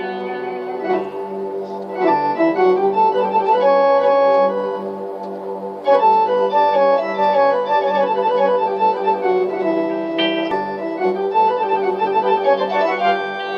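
Music: an organ-like keyboard plays a melody in sustained notes over a steady low drone, with louder phrases coming in about two seconds and six seconds in.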